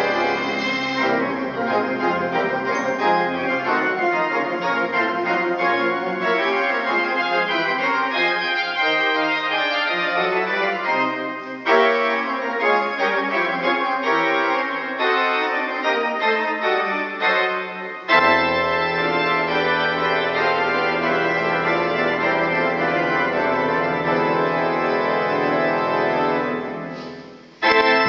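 Pipe organ playing held chords, joined by deep sustained pedal notes about two-thirds of the way through. The sound dies away near the end, then a loud chord comes in suddenly.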